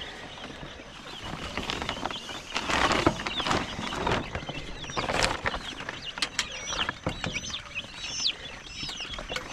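Baby poultry chicks peeping in many short, high chirps, with rustling and sharp knocking noises as they are handled.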